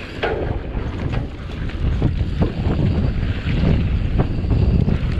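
Wind buffeting the microphone as a Santa Cruz Bronson mountain bike speeds down a dirt trail. Tyre rumble runs underneath, and short knocks and rattles come from the bike over bumps.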